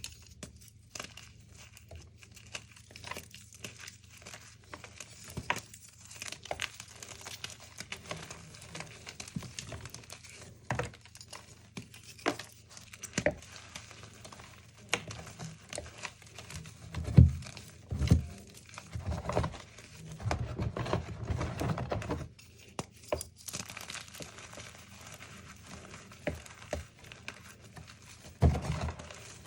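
Chalk being crushed and crumbled: a run of dry crunches and crackles, with a cluster of louder crunches a little past halfway.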